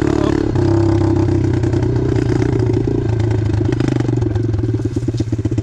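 Apollo 125cc pit bike's single-cylinder four-stroke engine running as the bike is ridden. About three and a half seconds in, the throttle eases off and the single cylinder's firing beats become distinct as it slows.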